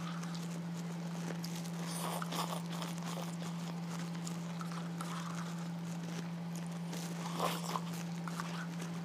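Close-up mouth sounds of eating instant noodles from a cup: short wet clicks of chewing and lip smacks, with brief slurps about two seconds in and again near the end. A steady low hum runs underneath.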